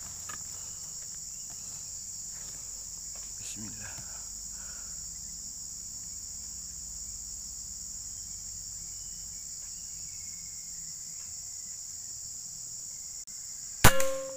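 A steady high-pitched drone of insects, then near the end a single sharp PCP air rifle shot, followed by a short ringing tone.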